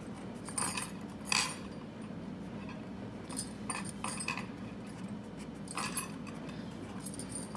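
Short scratchy strokes of writing or drawing, a dozen or so scattered through, over a steady low hum.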